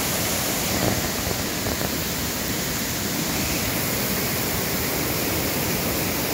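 Floodwater rushing steadily over rocky cascades in a swollen, flooding creek: a continuous whitewater rush.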